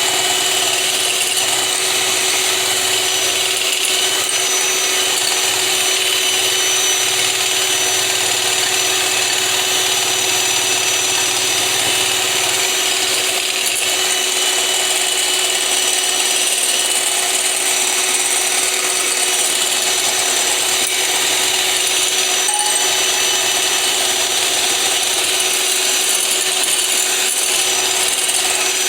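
Electric blender motor running steadily with a constant whine, whipping egg and oil into a mayonnaise emulsion.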